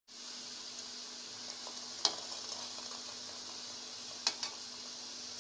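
Hot oil sizzling steadily as bread-coconut balls deep-fry in a kadai, with a few sharp pops, one about two seconds in and another near four seconds.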